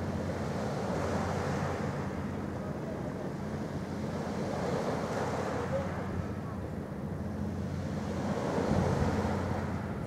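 Shoreline ambience: waves washing and wind buffeting the microphone, swelling a few times, over a steady low engine hum.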